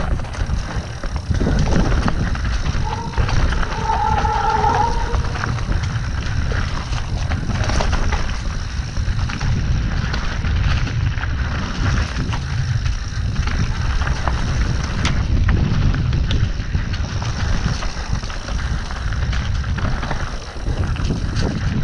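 Mountain bike descending rocky dirt singletrack: steady wind rumble on the camera microphone, with tyre roll and a constant rattle and clatter of the bike over rough ground. A brief higher tone sounds about four seconds in.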